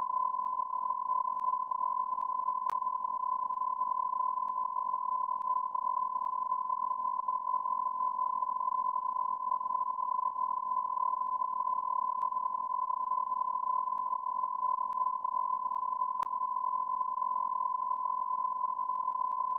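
A single steady electronic beep tone, like a censor bleep or test tone, held without a break.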